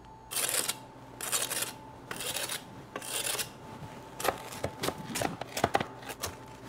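Large chef's knife cutting through a crisp-baked pizza crust: four scraping strokes about a second apart, then from about four seconds in a run of short, sharp crunching cracks as the blade presses through the crust.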